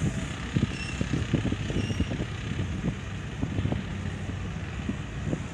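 CC 206 diesel-electric locomotive heard approaching at a distance: a steady low engine rumble, broken by many irregular short low thumps.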